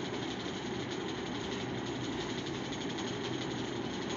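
Steady mechanical hum and hiss of room background noise, even throughout with no distinct events.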